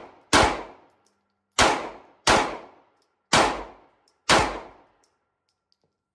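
Five gunshots fired one at a time at an uneven pace, each a sharp crack that rings out and fades over about half a second.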